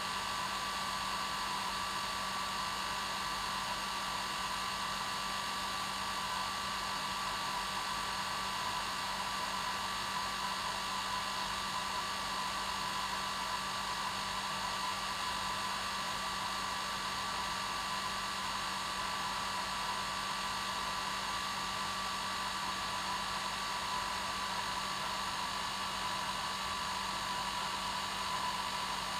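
Hair dryer running steadily, a constant whooshing hum with a fixed whine and no change in speed.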